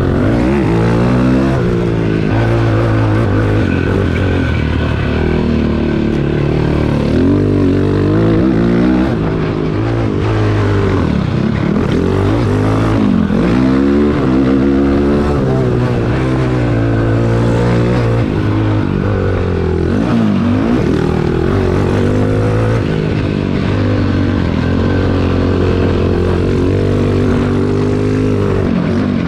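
Cannondale quad's single-cylinder four-stroke engine under way, its revs climbing and dropping again and again as the throttle is worked and the gears change.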